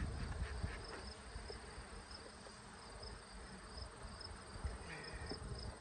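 Honeybees buzzing around an open hive, with an insect in the grass chirping steadily at about two to three chirps a second.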